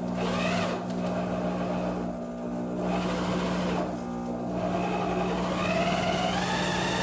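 A motor running steadily with an even hum, its whine rising slightly in pitch near the end.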